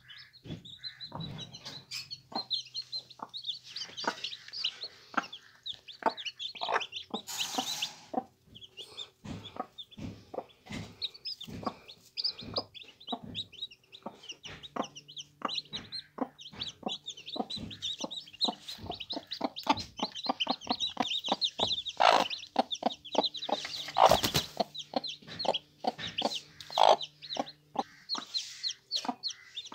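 Newly hatched chicks peeping rapidly and continuously while a broody hen clucks in short repeated clucks. Two brief louder rustling bursts come about a quarter of the way in and again later.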